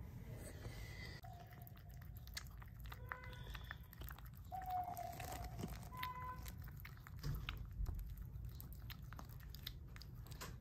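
Toy poodle mother licking and nibbling her newborn puppy: soft wet licking and chewing clicks throughout, with a few thin squeaks from the puppy, one drawn out about halfway through.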